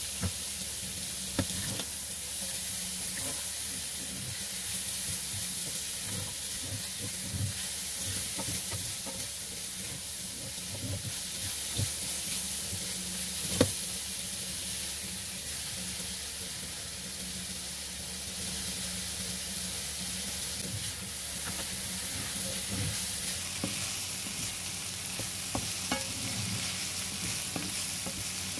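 Diced ham and vegetables stir-frying in a honeycomb-textured wok: a steady sizzle, with a spatula scraping and tapping against the pan throughout. One sharper knock comes about halfway through.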